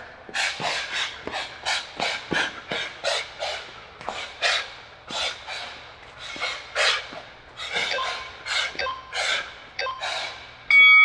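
Sharp, hissing exhalations, about two a second, as a boxer throws punches while shadowboxing hard. Near the end a loud electronic interval-timer beep starts.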